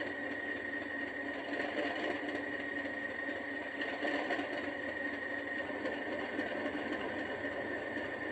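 An Accurascale OO gauge Class 37 model's sound decoder playing a steady diesel engine hum through its small onboard speaker, with a thin high whine over it.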